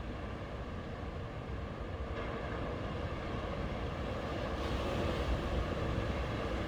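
Sea waves breaking and washing on a beach as a steady surf roar, swelling about two seconds in and loudest around five seconds in as a wave breaks.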